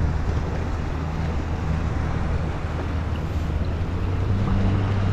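A steady low engine hum over wind and water, stepping up in pitch about four seconds in.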